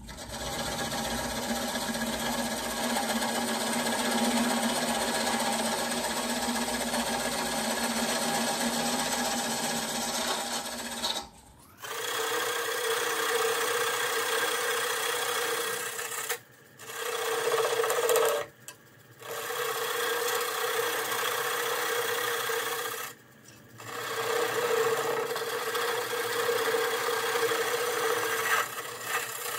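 Wood lathe running with a walnut and cherry bowl spinning while a turning tool cuts away the tenon, a steady motor hum under the scrape of the tool on the wood. The hum jumps higher in pitch about a third of the way in, and the sound breaks off briefly a few times.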